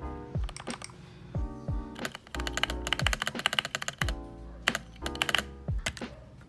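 Mechanical keyboard keys clacking in quick runs of presses, the densest a couple of seconds in, over background music with a deep, booming beat.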